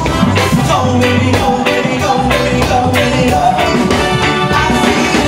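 Live reggae band playing an instrumental stretch of a song, with electric guitar, bass guitar, keyboards and drum kit keeping a steady beat.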